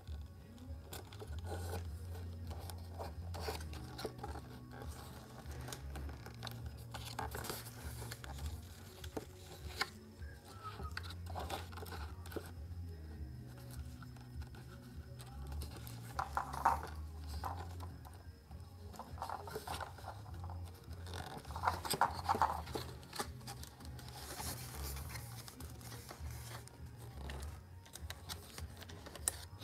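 Hand-handling noises of a foam RC glider's tail and servo leads being fitted together: scattered scrapes, rubs and small clicks, with louder rubbing bursts about halfway through and again about three quarters in. Faint background music runs underneath.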